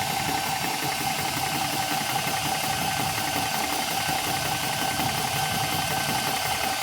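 Small high-pressure air compressor running steadily with a constant whine, filling a PCP air rifle's air reservoir.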